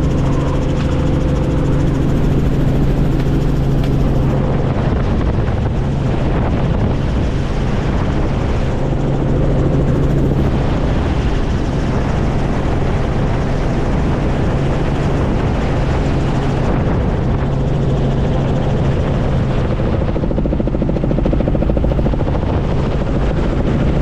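Helicopter in flight, heard from on board: a steady loud rotor and engine drone with a low hum and rushing air that does not change.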